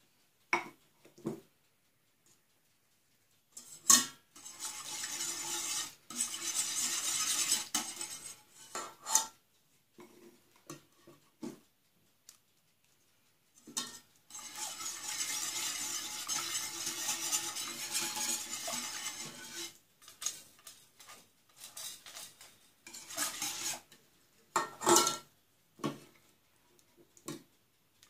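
Wire whisk beating milk in a stainless steel pot, rattling and swishing against the pot's sides in two long stretches of several seconds each. Between them come sharp knocks and taps of utensils on the metal pot, the loudest about four seconds in, as a wooden spoon scrapes in blended fig paste.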